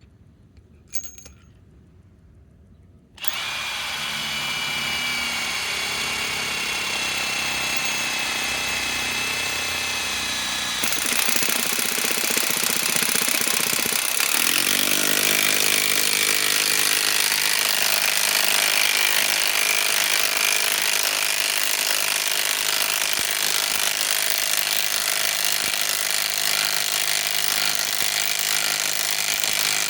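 Bosch GDS18V-330C cordless mid-torque impact wrench starting about three seconds in and running continuously, driving a large lag screw into fresh wood. Its sound gets louder about eight seconds after it starts, and a few seconds later its tone drops and steadies.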